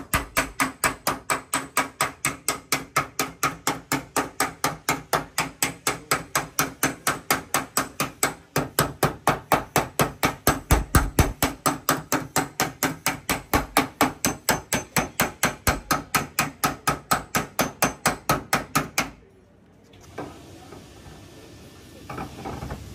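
Hammer beating out a dent in a Honda car door's sheet-metal panel: rapid, even blows about four a second that stop suddenly about nineteen seconds in.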